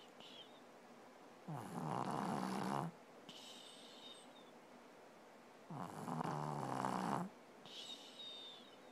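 A person snoring in their sleep: two loud, rasping snores about four seconds apart, each lasting well over a second. After each snore comes a fainter high whistle.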